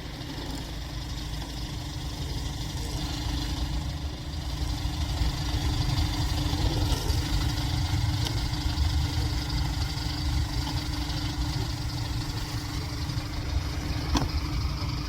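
Steady low engine rumble, growing louder over the first five seconds.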